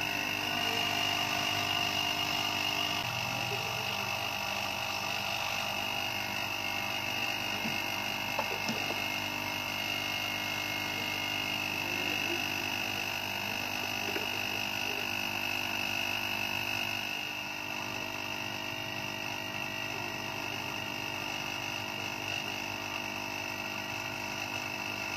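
Steady machine hum with a high-pitched whine, easing off slightly about two-thirds of the way through, with a few faint light taps.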